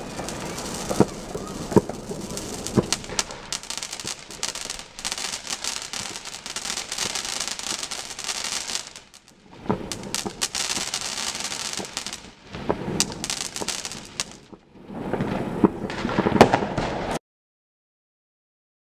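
Fireworks going off: a dense, continuous crackle punctuated by sharp bangs, with two brief lulls. It cuts off suddenly near the end.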